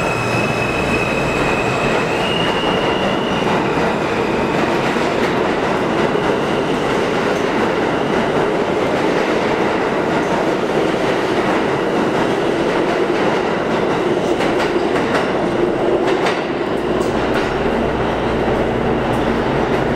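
New York City subway R train of R160 cars pulling out of an underground station. Its traction motors give a few stepped, rising whine tones in the first seconds, then the cars rumble and clatter steadily over the rails as the train passes.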